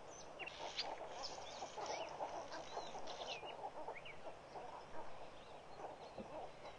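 A large flock of birds calling together: a dense, continuous babble with many short, sharp high chirps scattered through it.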